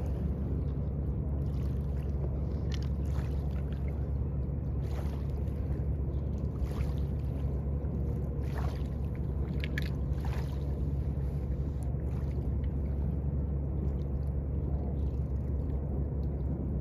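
A steady low drone, like a running motor, with faint scattered ticks and splashes over it.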